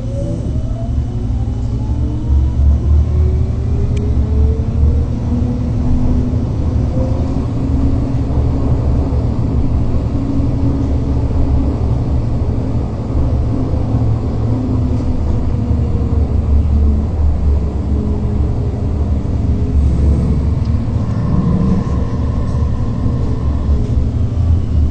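Electric tram riding on its rails, heard from inside: a steady low rumble of wheels on track, with a motor whine rising in pitch over the first several seconds as it picks up speed.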